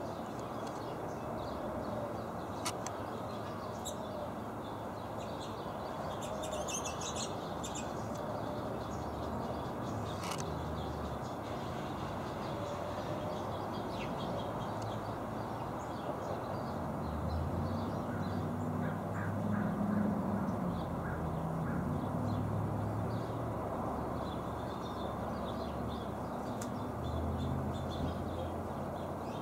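Steady outdoor background noise with scattered short bird chirps, including a quick flurry of them about seven seconds in. A low hum swells from about seventeen seconds in and lingers.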